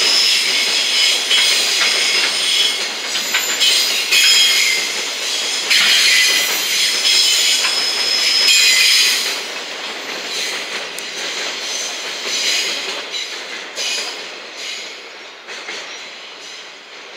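Container wagons of a freight train rolling past on curved track, wheels squealing high over a steady rumble with some clickety-clack. The squeal and rolling noise fade from about nine seconds in as the last wagon passes and the train draws away.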